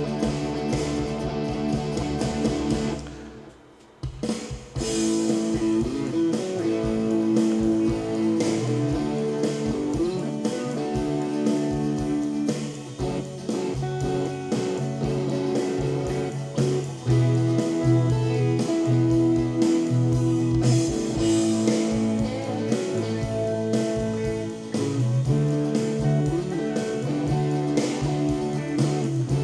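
Recorded band music played back through a digital mixer for a virtual sound check: a guitar-led, blues-flavoured song with drum kit. It drops out briefly about three seconds in, then carries on.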